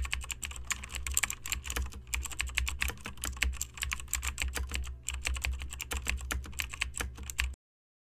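Fast keyboard typing: a dense, irregular run of key clicks over a faint low hum, cutting off suddenly near the end.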